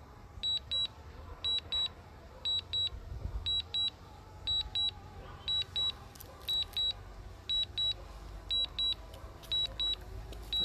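Drone controller's low-battery warning beeping: short high double beeps repeating steadily about once a second, the alarm for a flight battery run low. A faint low rumble runs underneath.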